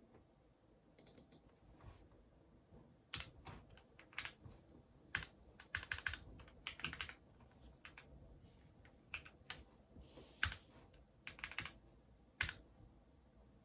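Typing on a Keychron mechanical keyboard: irregular keystroke clicks in short flurries, separated by brief pauses.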